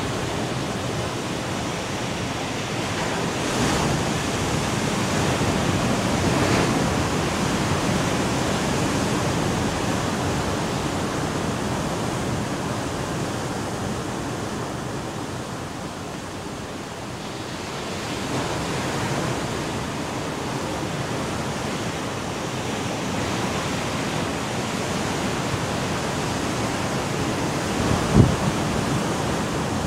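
Sea surf breaking on a rocky shore: a steady rushing wash that swells and eases a few times, with one short sharp knock near the end.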